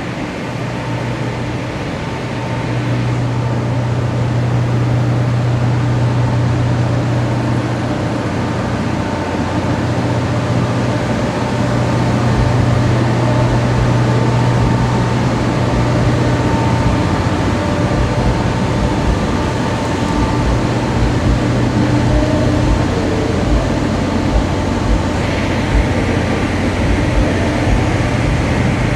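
Loud, steady mechanical drone with a strong low hum and a few faint steady tones above it. The speaker took it for turbines and calls it a horrible noise.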